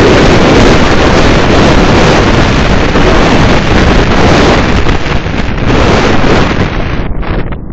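Loud wind buffeting the microphone of a 360° camera on a moving car: a steady, noisy rush that turns choppy near the end.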